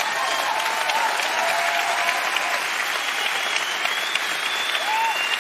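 Large theatre audience applauding steadily, with a few voices faintly audible over the clapping.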